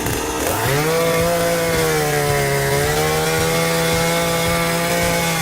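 Chainsaw engine revving up to full throttle about half a second in and held there under load, its pitch sagging a little as it cuts.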